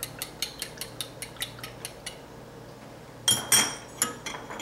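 Metal utensil beating egg yolks into water in a glass measuring cup: quick, even clinks against the glass, about five a second, stopping about two seconds in. A louder clatter of utensils follows a little after three seconds.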